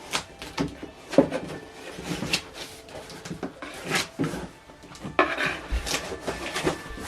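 Packaging of a large TV box being handled: irregular rubbing and scraping with scattered knocks, the sharpest about a second in.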